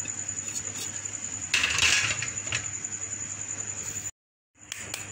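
Kabab mixture being handled in a ceramic bowl: a brief rustle about a second and a half in, over a steady high whine and low hum. The sound cuts out completely for half a second near the end.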